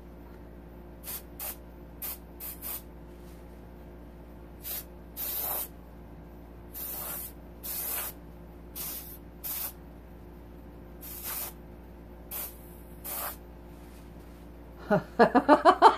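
Airbrush fed by an air compressor, fired in a dozen or so short hisses of air, some quick taps and some up to half a second long, blowing wet acrylic paint across a canvas. A brief burst of voice near the end.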